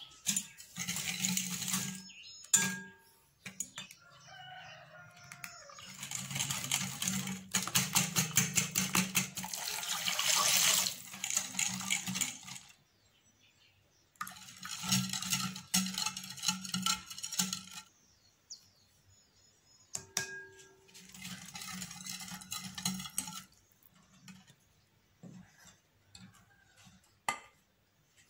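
Stainless wire whisk beating a runny cake batter in a glass bowl, its wires clattering against the glass in several spells of quick, even strokes with pauses between. A single knock comes near the end.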